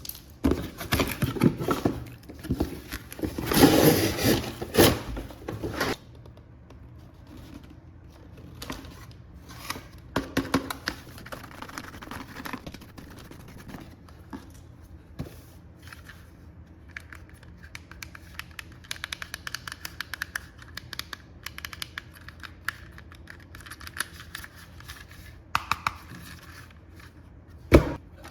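Hands handling toy packaging: scratching, scraping and tearing, busiest and loudest for the first six seconds, then scattered light clicks, with one sharp click near the end.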